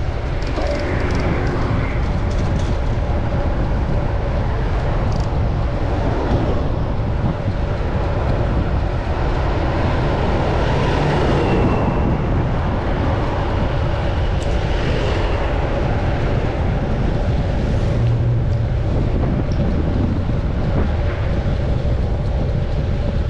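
Steady rush of city traffic and wind heard from a moving bicycle, with a brief high squeal about halfway through.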